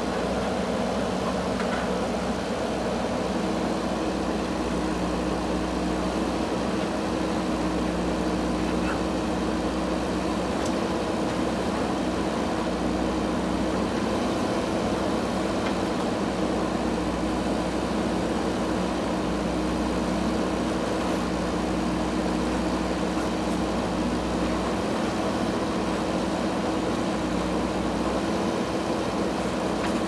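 Diesel engine of a JCB 3DX backhoe loader running steadily while the backhoe arm digs soil, an even, unbroken drone.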